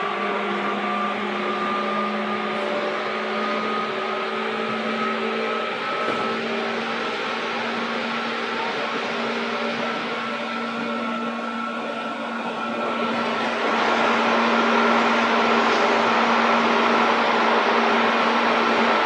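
Running noise of a JR 205-series electric train: a steady hum from the traction motors, with a tone creeping slightly up in pitch as it gathers speed, over the rumble of wheels on the rails. The noise grows louder and rougher about two-thirds of the way through.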